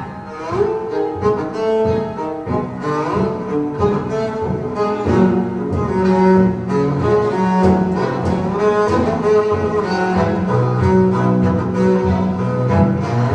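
String orchestra recording with cellos and double basses prominent, in a brisk rhythmic passage of short repeated notes, played through Tidal Piano Diacera loudspeakers in the room.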